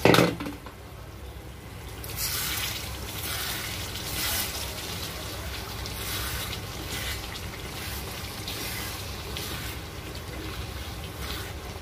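Methi mutton bhuna simmering and sizzling in an aluminium kadai while it is stirred with a wooden spatula, the thick curry bubbling and slopping; the dish is nearly done. A loud metal clank right at the start.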